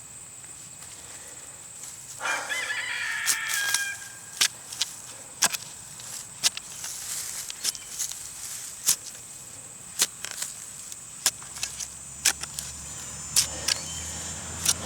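A rooster crows once, about two seconds in, a call of nearly two seconds. Sharp clicks and knocks are scattered throughout.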